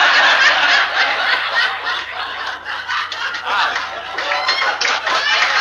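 A club audience laughing at a punchline: many people laughing and chuckling together, loudest at the start, easing off in the middle and swelling again near the end.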